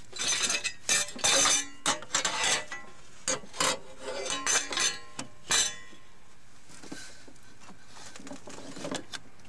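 Steel hand tool clinking and clanking against metal engine parts, a string of sharp clinks over the first five seconds or so.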